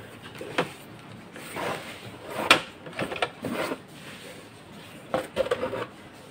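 Hard plastic armrest parts knocking and scraping against a cardboard box and its foam packing as they are handled and lifted out: a scatter of irregular knocks and rustles, the loudest about two and a half seconds in.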